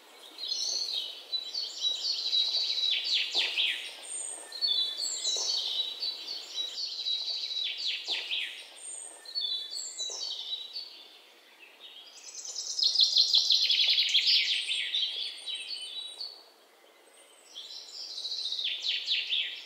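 A songbird singing repeated phrases every few seconds. Each phrase is a run of high whistled notes ending in a fast falling trill, over a faint steady outdoor hiss.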